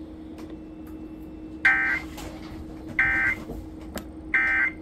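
Emergency Alert System end-of-message code: three short bursts of two-tone digital data warble, about a second and a third apart, closing the severe thunderstorm warning broadcast. A faint steady hum runs underneath.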